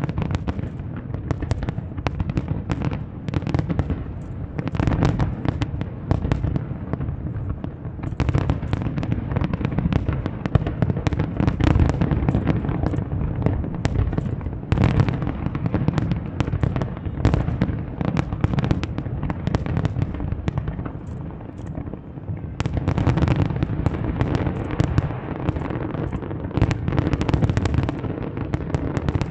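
Fireworks display: a dense, continuous barrage of bangs over a steady low rumble. It eases for a couple of seconds about three-quarters of the way through, then builds again.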